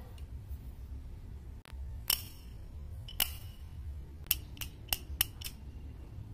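A series of about seven sharp, irregularly spaced clicks, the first two ringing briefly, over a steady low rumble.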